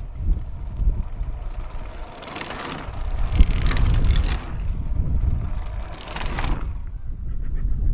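Road racing bicycles clattering over cobblestones as riders pass close by: a long rattling pass through the middle and a shorter one about six seconds in. A low wind rumble on the microphone runs underneath.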